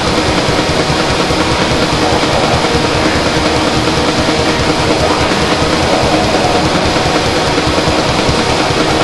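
Loud, harsh noise music: a dense distorted wall of sound with faint held tones underneath, at a steady level throughout.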